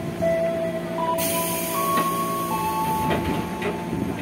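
Interior of a KRL ex-JR 205 series commuter car standing at a platform. A sudden hiss of released air starts about a second in and fades over a couple of seconds, over steady whining tones that change pitch a few times. A few short clunks come near the end.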